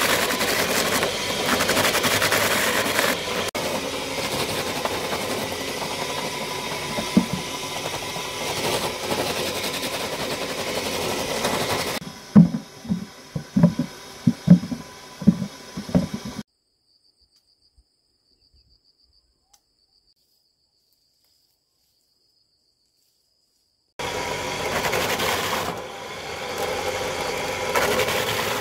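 Belt-driven cassava slicing machine running steadily while dried cassava roots are fed in and cut into strips. About twelve seconds in, it gives way to a quick run of heavy thuds as roots are tossed into a plastic basket, then several seconds of dead silence. The slicer runs again near the end.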